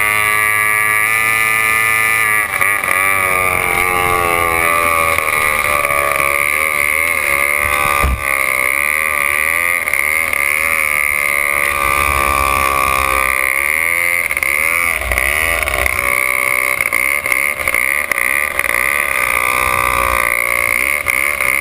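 C-class racing hydroplane's engine running continuously, its pitch repeatedly rising and falling as the throttle is worked.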